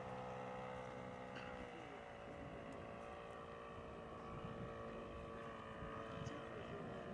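Distant, steady drone of a quarter-scale model plane's 32 cc MBM four-stroke petrol engine in flight, its pitch dropping slightly about a second and a half in.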